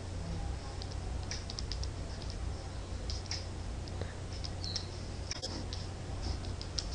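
Faint, irregular computer mouse clicks over a steady low electrical hum.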